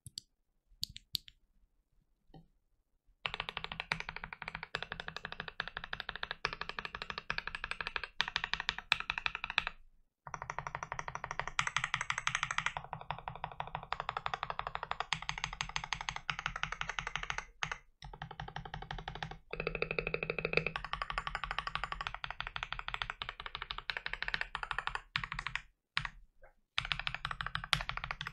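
Fast typing on a TM680 mechanical keyboard fitted with lubed Boba U4T and Akko CS Lavender Purple switches: a dense run of keystrokes broken by a few short pauses. A few scattered key clicks come first, in the opening seconds.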